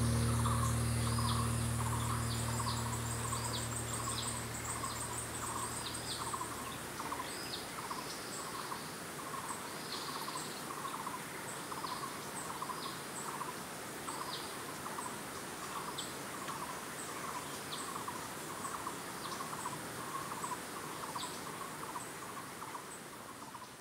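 Jungle ambience of insects and birds calling in a steady, repeating chorus: one call pulses about twice a second, with higher chirps and faint ticks over it. Soft background music fades out over the first few seconds.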